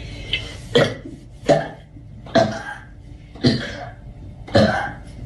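A young woman burping five times in a row, short abrupt burps about a second apart.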